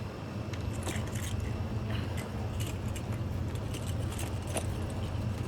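Scattered clicks and rattles of equipment being handled, over a steady low rumble.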